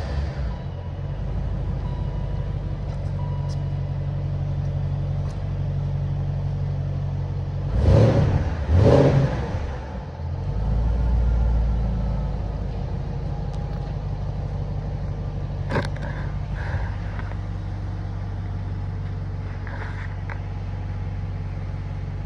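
BMW X5 engine idling just after a cold start, heard at the exhaust tips. It is revved in two short blips about eight seconds in, runs with a deeper, louder rumble for a couple of seconds, then settles back to a steady idle. A single sharp click comes about sixteen seconds in.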